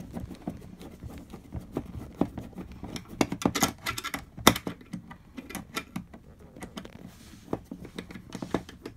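Screwdriver clicking and scraping against the screws and the ice maker's sheet-metal base plate as the pump's mounting screws are undone: a run of irregular small clicks, the sharpest from about three to four and a half seconds in.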